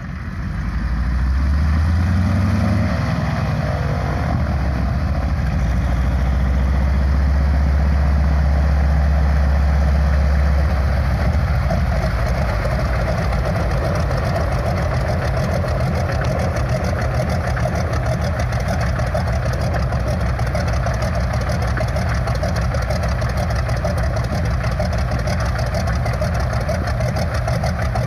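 PZL M-18 Dromader crop-duster's nine-cylinder radial engine running as the plane taxis in, growing louder over the first couple of seconds. About ten seconds in the deep drone drops away and the engine settles to a steady idle with the propeller still turning.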